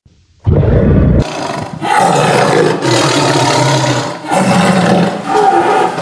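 Tiger roaring loudly. The roaring starts abruptly after a brief silence about half a second in and runs on as a string of long roars with short breaks.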